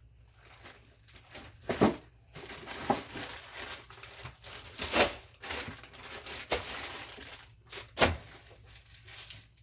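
A plastic bag crinkling and rustling as food is handled, with a few sharp knocks and clicks, the loudest about two, five and eight seconds in.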